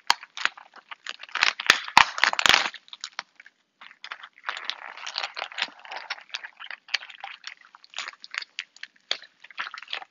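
Meal-kit packaging being handled and opened: crinkling and rustling, with several sharp snaps about one and a half to two and a half seconds in and scattered clicks after.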